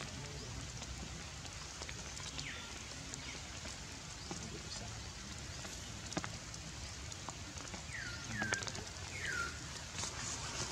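Steady rain with scattered drip clicks. A few short, high squeaks that fall in pitch come about two seconds in and again near the end.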